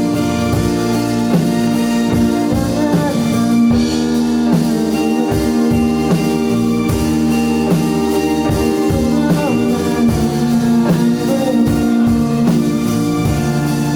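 Live band playing an instrumental passage of a pop-rock song, with guitar, drum kit and sustained chords and no singing.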